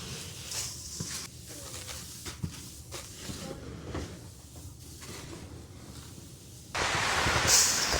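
Soft knocks and rustles of dry chicken-feed ingredients being handled, then, about two thirds of the way in, a sudden loud, steady hiss as a dry feed ingredient is poured into the mixing tote.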